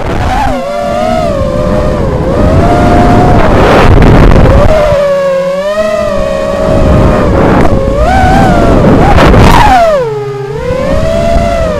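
Brushless 2205-size 2300KV motors of a 5-inch FPV racing quadcopter spinning tri-blade props and whining, the pitch gliding up and down with the throttle, over rushing air noise. The whine drops lowest about ten seconds in, then climbs back.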